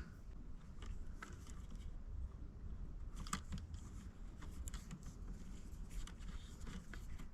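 Faint, scattered small clicks and scrapes of hands handling a micro RC crawler's plastic chassis while a tiny screw is put back in.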